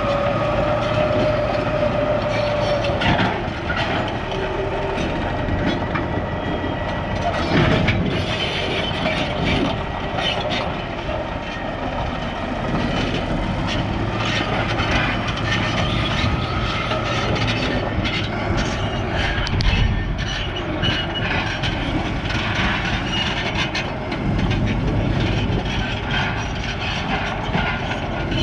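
Caterpillar D9H crawler dozer working hard, its diesel engine under load while the steel tracks clank and squeal over rock. A squeal is held for the first few seconds, with irregular clanks throughout.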